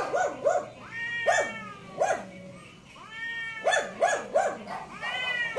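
Cats yowling in a fight standoff: short repeated cries in runs of three or four, broken by longer wails that rise and fall.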